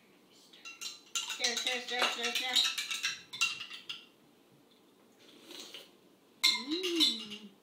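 Metal spoons clinking and scraping against drinking glasses while milk is stirred, in two spells: a long one from about a second in and a short one near the end.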